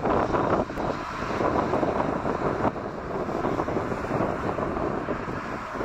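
Strong gusty wind buffeting the microphone, over the steady rumble and faint whine of an Airbus A340-313X's four CFM56 jet engines at low power as it taxis off the runway after landing.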